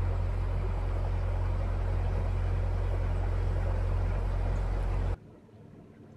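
Narrowboat's engine running steadily under way, a heavy low rumble with water and wind noise over it, cutting off abruptly about five seconds in.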